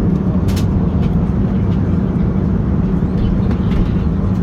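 Steady low rumble inside the cabin of an Airbus A320neo airliner: engine and airflow noise with a constant hum, and a few faint ticks.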